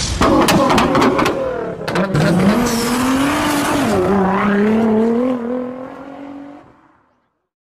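Sports car engine sound effect revving and accelerating, its pitch climbing, dipping about four seconds in and climbing again, with a few sharp hits in the first two seconds; it fades out near the end.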